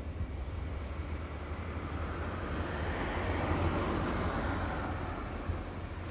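A vehicle passing by: its noise swells over a couple of seconds, peaks about halfway through, then fades, over a steady low rumble.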